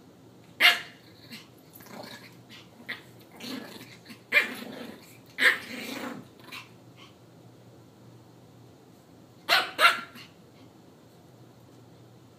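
Two Yorkshire terriers play-fighting: a sharp bark about a second in, a stretch of growling and snapping in the middle, and two quick barks near the end.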